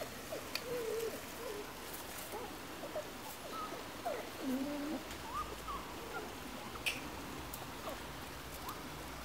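Five-week-old Labrador puppies giving faint, scattered little squeaks and whimpers as they play, a few short wavering cries at a time, clustered about a second in and again around the middle.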